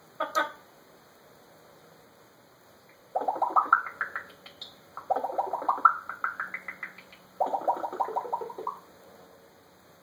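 African grey parrot vocalizing in three bouts of rapid stuttering pulses, about ten a second, each bout climbing steadily in pitch over a second and a half to two seconds, after one short sound just at the start.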